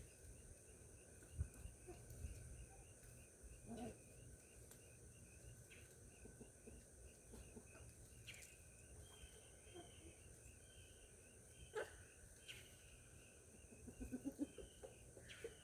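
Faint outdoor garden ambience: a high chirping that repeats steadily throughout, with a few soft knocks and a short run of low pulses near the end.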